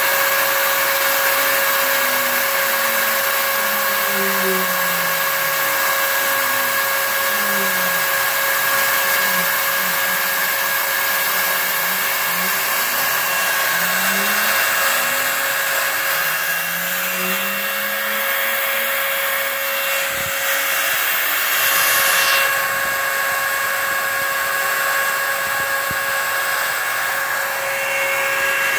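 Home-built CNC router milling a foam mold: the spindle motor runs with a steady whine over the noise of a vacuum on the dust hose. Lower tones glide up and down in pitch every second or two as the stepper-driven axes speed up and slow down.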